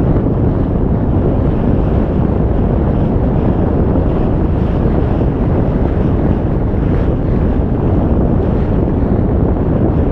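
Steady wind buffeting the microphone of a camera on a sailing yacht under way, over the rush of water along the hull as she sails.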